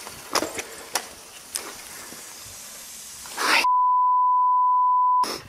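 Mountain bike (Mondraker Foxy Carbon RR 29) rolling down a dirt forest trail, tyre noise with sharp knocks and rattles from the bike, ending in a rising whoosh. Then a loud, steady electronic beep sounds for about a second and a half and cuts off suddenly.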